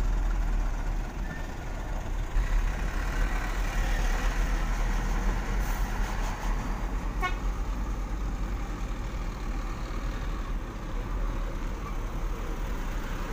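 A heavy self-loader truck's diesel engine rumbles steadily as the truck drives along loaded, and a vehicle horn toots.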